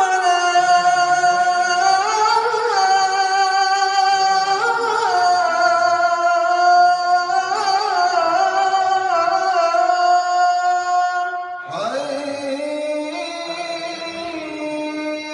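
Melodic Quran recitation by a single voice, holding long ornamented notes. The phrase breaks off about twelve seconds in, and a new phrase starts on a lower note.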